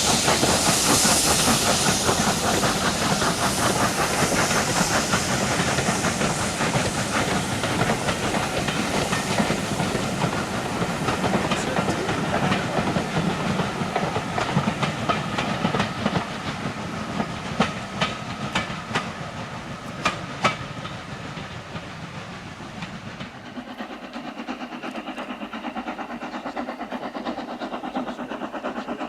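Steam train running on the line, with a loud hiss of escaping steam that gradually fades. About two-thirds in, a run of sharp clicks of wheels over rail joints is heard, and the sound then drops away.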